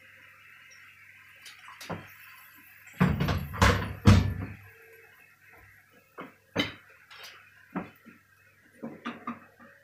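Kitchen knocks and thumps: a cluster of heavy thuds about three to four and a half seconds in, then scattered lighter clicks and taps. Underneath, the wok of chilli paste sizzles faintly after a little water has been poured in.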